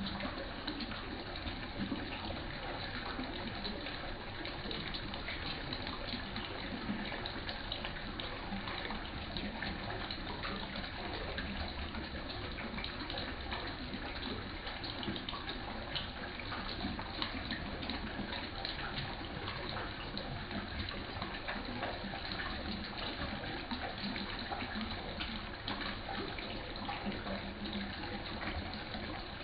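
Water in a small fish pond splashing and trickling steadily, with many small dense splashes.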